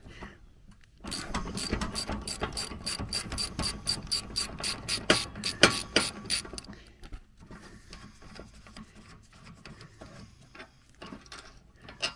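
Hand socket ratchet clicking at about five clicks a second for several seconds as it turns a nut on the riding mower's steering linkage, then slower, fainter clicks near the end.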